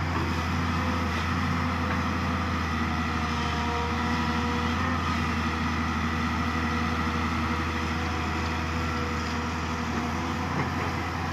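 Diesel engine of a Volvo EC200 wheeled excavator running steadily under hydraulic load as it swings, digs and lifts a bucket of soil. It makes a continuous low drone with a few faint whining tones that shift slightly in pitch.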